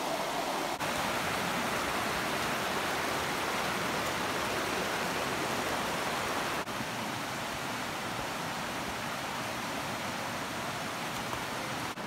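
River water rushing over rocks in a steady, even hiss, a little quieter after a brief break about two-thirds of the way through.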